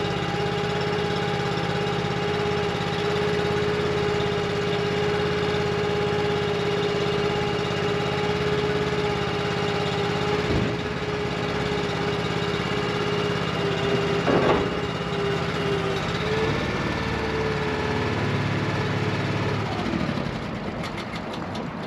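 Engine-driven hydraulic system of a roll-off trailer running at low throttle with a steady whine while it winches a loaded bin up. There is a knock about ten seconds in and a brief louder noise a few seconds later. The pitch shifts a few times toward the end before the sound eases off.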